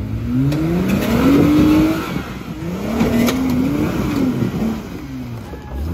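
A lifted Jeep Gladiator's engine revving in surges as the truck climbs a rock ledge on 43-inch tires. The pitch rises for about two seconds and drops back, rises again around the middle and falls, and starts climbing once more at the very end.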